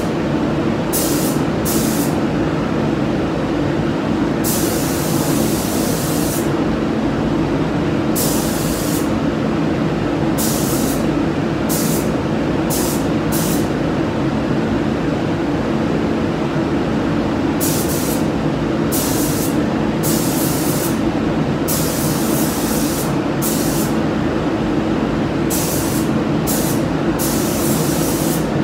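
Paint spray gun hissing in short on-off bursts, some a fraction of a second and some about two seconds long, as the first coat is sprayed onto a car body in passes. A steady low drone runs underneath.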